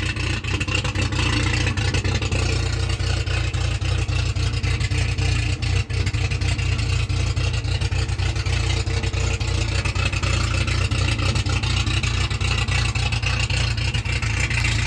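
Car engine idling steadily through a 'roncador' straight-through muffler, giving the exhaust a deep, even rumble.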